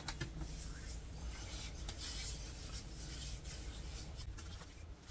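Soft rubbing and handling noise close to the microphone, with a few light clicks near the start and again near the end.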